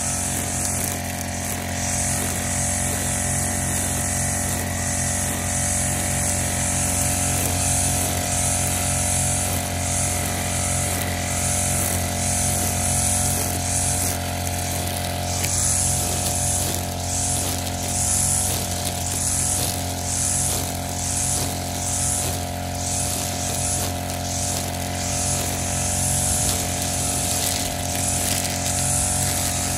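Backpack brush cutter's engine running steadily at cutting speed, its line head swishing through tall grass over and over, the swishes coming more often in the second half.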